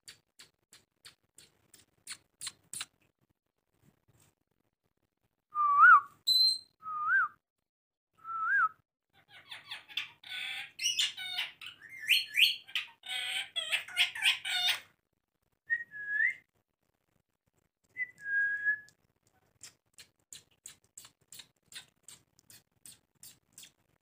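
Indian ringneck parrots whistling and chattering: a few short whistles that glide up in pitch, then several seconds of rapid squawky chatter, then two more whistles. A run of quick sharp clicks, about three or four a second, comes at the start and again near the end.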